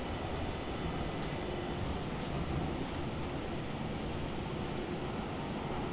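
Subway train running, a steady, even noise heard from inside the carriage, heaviest in the low range.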